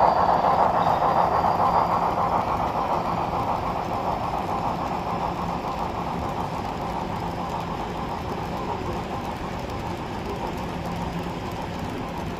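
HO scale model train running on the layout track, a steady rolling rumble of wheels on rail that grows gradually fainter.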